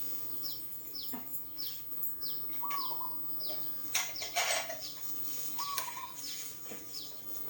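A small bird chirping repeatedly in quick short notes that fall in pitch, with a brief rustle of handling about four seconds in.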